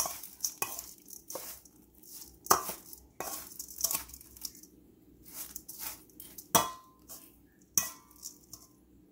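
Metal spoon stirring crispy fried rice and minced chicken in a stainless steel bowl: irregular clinks and scrapes of spoon on bowl, with a few sharper knocks.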